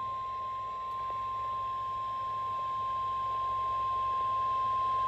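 Emergency alert tone: a single steady high tone just above 1 kHz, the NOAA Weather Radio 1050 Hz warning alarm tone, held for several seconds and growing slightly louder. It signals that a weather alert is about to be read out.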